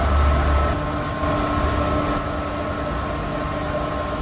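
Steady hum of running HVAC plant machinery: a low drone with several held tones over it, the drone deeper and stronger in the first second.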